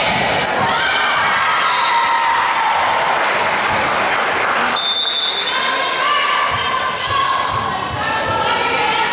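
Indoor team match in a gym hall: players and spectators calling out over repeated ball thumps, with the sound echoing in the large room. A short steady high tone sounds about five seconds in.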